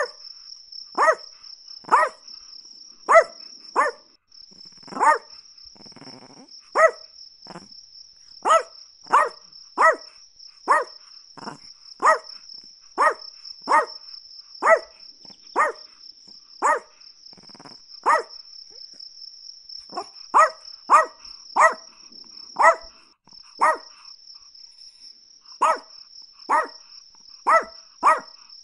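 Chihuahua barking over and over: short, sharp, high barks about one to two a second, sometimes in quick pairs, with brief pauses. A steady high insect trill runs behind them.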